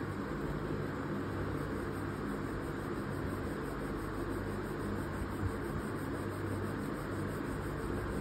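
Soft 8B graphite pencil scratching over drawing paper in shading strokes, over a steady low hum and hiss.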